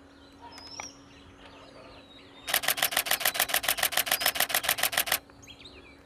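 Canon camera shutter firing in continuous burst mode: a fast run of sharp clicks, about ten a second, starting about two and a half seconds in and lasting about two and a half seconds.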